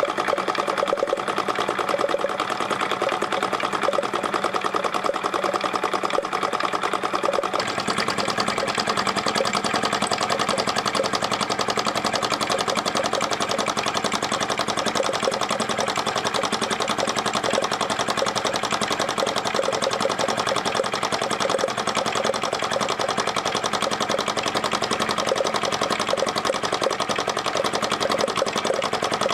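Small model flame-eater (hot-air) engine running and driving the belts, pulleys and line shafts of a miniature workshop: a fast, steady mechanical clatter, with a slightly deeper hum joining about seven seconds in.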